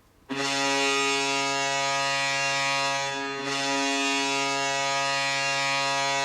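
NHL arena goal horn sounding a long, loud, steady blast with a brief break about three seconds in.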